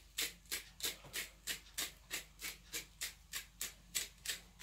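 Black pepper being sprinkled by hand over raw potato wedges: a steady rhythm of short rasping strokes, about three a second.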